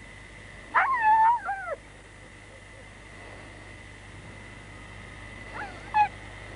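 Dog whining and yelping: one wavering cry about a second long near the start, and a short yelp near the end.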